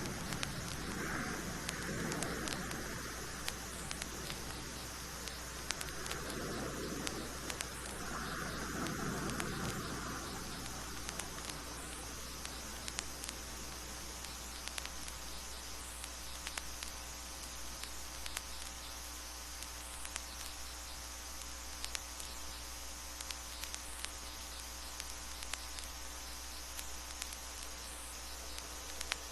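Vinyl record surface noise: scattered crackles and clicks over a steady hum, with a few faint soft rushes of sound dying away in the first ten seconds.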